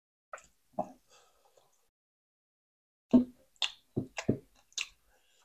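Eating sounds close to the microphone: a few short, sharp smacks and clicks, two a little under a second in and a quicker run of five from about three seconds in.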